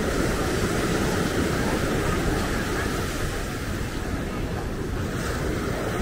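Ocean surf breaking and washing on a sandy beach, a steady wash of noise, with wind buffeting the microphone.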